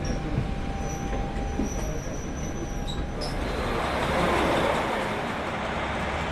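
KiHa 40 diesel railcar running on the rails, with a thin high squeal of wheels on rail over the first three seconds. A louder rushing noise then swells, peaks and eases off.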